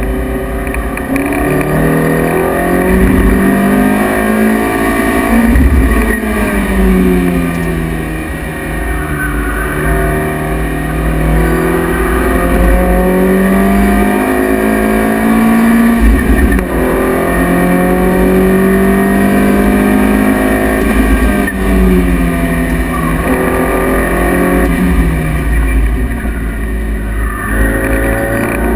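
Lotus Elise S1's mid-mounted 1.8-litre Rover K-series four-cylinder engine at full speed on track, heard inside the cabin. The revs climb and fall repeatedly, with several sharp breaks at gear changes, over steady road and wind noise.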